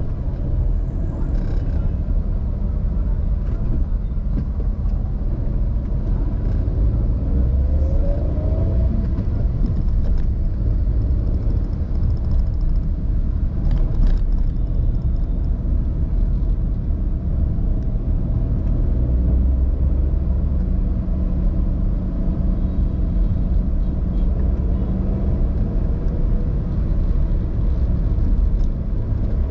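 Car driving on a road: a steady low rumble of engine and tyre noise, with a brief sharp click or knock about 14 seconds in.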